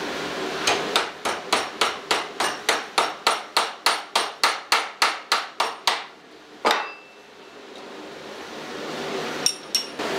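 Blacksmith's hammer forging a small steel bar on an anvil in a quick, even rhythm of about three to four blows a second for some five seconds, then one ringing blow. Two light taps come near the end.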